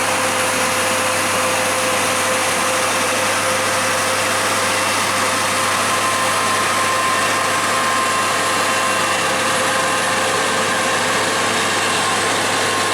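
Heavy vehicle engine running steadily as a truck or bus climbs the hill, with a steady whine over the engine noise.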